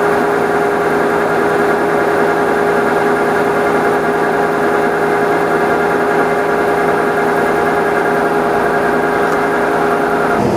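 Combine harvester running steadily while cutting wheat: a constant engine drone with a steady whine. The sound changes abruptly just before the end.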